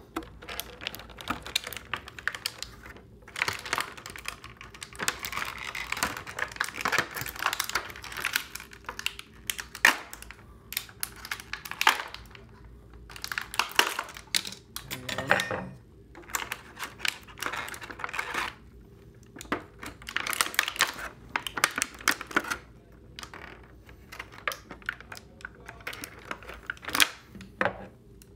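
Thin clear plastic packaging tray being handled and pried apart, crackling and clicking in irregular bursts.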